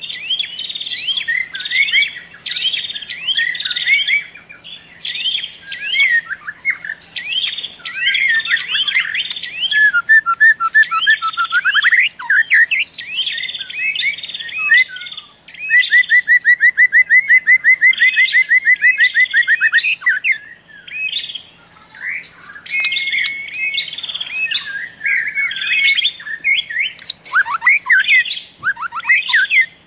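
Busy birdsong: several birds chirping and trilling without pause, with a fast, even trill of rapid repeated notes a little past the middle. A faint steady low hum runs underneath.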